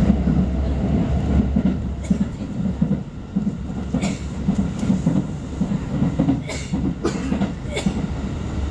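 Inside a Keikyu express commuter train running at speed: a steady low rumble of wheels on rail, with a handful of sharp clacks in the second half as the wheels cross rail joints.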